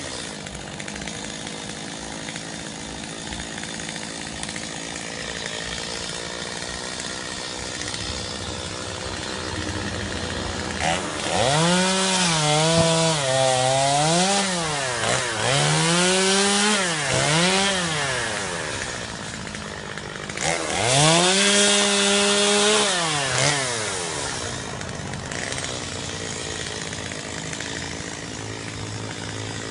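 Chainsaw engine running at a low steady idle, then revved up and down several times in quick succession, settling briefly, revved again in one longer rise and fall, and dropping back to idle.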